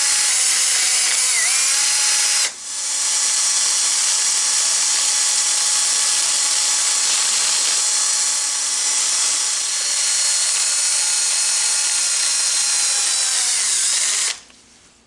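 Mini drill with a rough-grit abrasive sanding disc grinding rust off an old metal tool: a high-pitched motor whine with a gritty rasp, its pitch sagging at times as the disc is pressed on. It stops for a moment about two and a half seconds in, starts again, and cuts off near the end.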